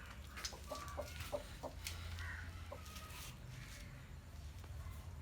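Chicken clucking in short, scattered calls over a low steady rumble.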